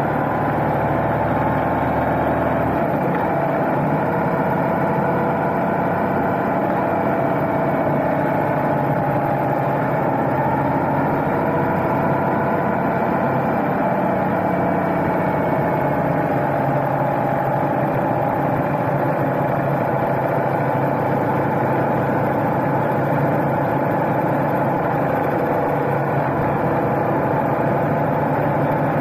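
BMW motorcycle engine running steadily while the bike cruises, picked up close to the engine. Its pitch and loudness hold nearly constant throughout.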